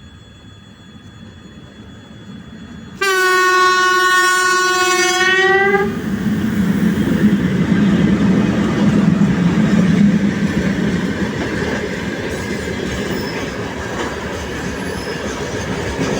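Electric multiple-unit train approaching with a rising rumble. It sounds its horn once, a single steady tone for about three seconds. It then passes close by with a loud rumble of wheels on the rails.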